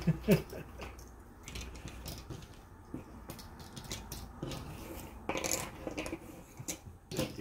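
Cardboard pieces of a Ceaco 400-piece jigsaw puzzle being pulled apart by hand and dropped onto loose piles on a table: scattered light clicks and rustles, with a louder clatter about five and a half seconds in.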